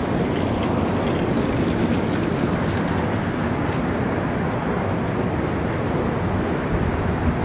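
Steady, loud rushing noise without clear pitch or rhythm, holding an even level throughout.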